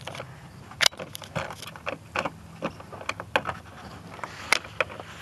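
Irregular small metallic clicks and taps of wing nuts being spun off and pulled from the bolts holding a Porta-Bote folding boat's back piece. The two sharpest clicks come about a second in and near the end.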